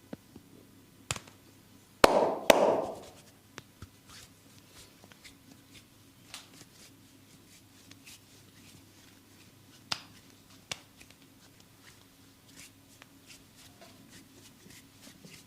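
Massage hands striking bare skin: two loud slaps about half a second apart roughly two seconds in, then scattered light taps and clicks.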